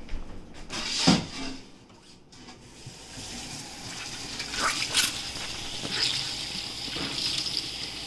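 A knock about a second in, then a tap running steadily into a sink from about three seconds in as a cleaning rag is rinsed under it.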